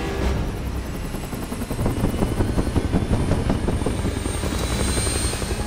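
Bell UH-1 Huey helicopters in flight: rotor blades beating in rapid, even thuds, growing louder about two seconds in, with a high whine rising in pitch through the second half.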